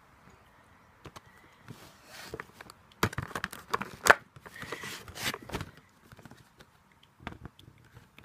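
Clear plastic clamshell packaging crinkling and clicking as it is handled and turned over, loudest in the middle, with a few lighter clicks near the end.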